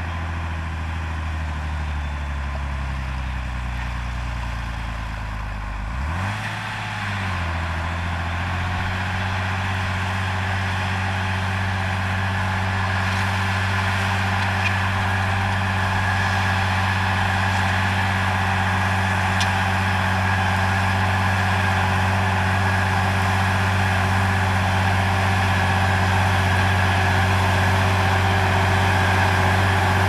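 Tractor diesel engine running under load as it pulls a disc harrow through a field. The engine note sinks over the first few seconds, rises and falls briefly, then holds steady and grows slowly louder as the tractor comes closer.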